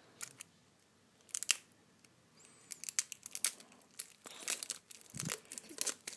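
Thin cellophane wrapper being peeled and crinkled off a deck of playing cards: scattered sharp crackles, sparse at first and thicker through the second half.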